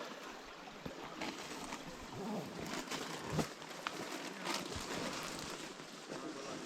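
Low, steady outdoor background noise with scattered faint clicks and crackles at irregular intervals.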